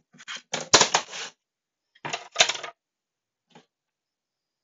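Plastic remote controls clattering and knocking against a wooden wall organizer as they are set into its slots. The sound comes in two clusters of clicks, the first in the opening second and the second about two seconds in, then one faint tick.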